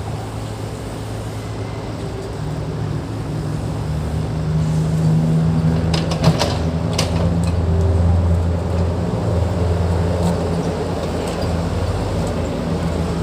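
Diesel engine of heavy earthmoving equipment running under load, growing louder over the first several seconds and then easing a little, with a few sharp metallic clanks about six seconds in.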